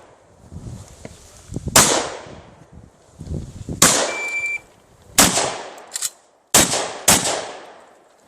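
Shotgun fired five times at irregular intervals, each shot sharp with a short echoing tail. A brief metallic ring follows the second shot.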